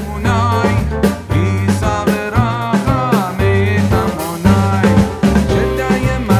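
Background music with a steady drum beat, bass and a wavering sung melody.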